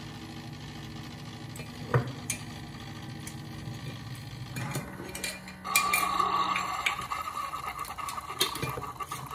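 Cuisinart single-serve coffee maker brewing: a steady low hum with a few clicks, then about five and a half seconds in the pump starts and coffee streams into a ceramic mug with a steady higher-pitched whine and hiss.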